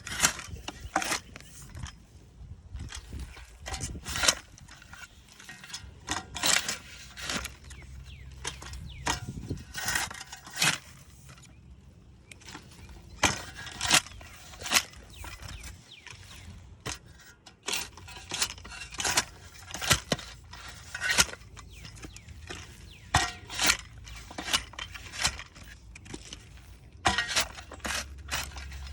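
Shovel digging into soil: irregular strokes of the blade biting and scraping into the ground, roughly one a second with short pauses.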